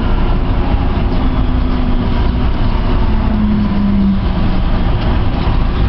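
Siemens C321 Taipei Metro train running, heard from inside the car: a steady rumble and rolling noise, with a faint low hum that drops in pitch about three seconds in.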